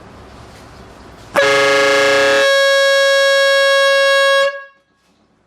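GAMPRO 12V dual trumpet air horn, fed by its electric compressor, giving one loud blast of about three seconds starting about a second and a half in. It starts as two notes together, then after about a second only the higher note carries on until it cuts off.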